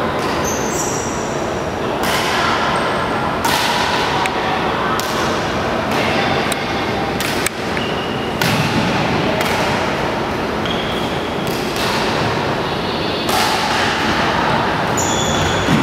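Badminton rally: rackets striking the shuttlecock with sharp hits every second or two, and shoes squeaking briefly on the wooden court floor, over a steady echoing hall noise.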